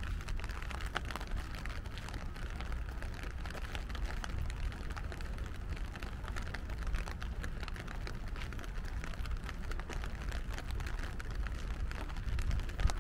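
Steady rain, many small drop taps over a low rumble.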